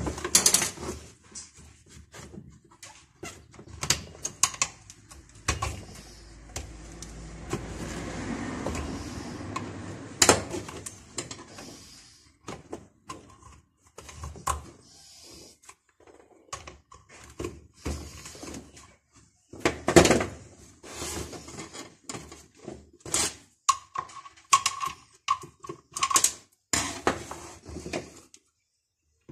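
Irregular knocks, clicks and scrapes as a chainsaw's plastic housing and hand tools are handled and set down on a steel workbench, with a rougher stretch of scraping a few seconds in and a brief thin metallic ring later on.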